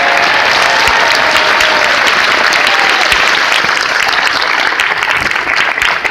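Audience applauding, with a few cheering voices over the first couple of seconds; the clapping thins out near the end.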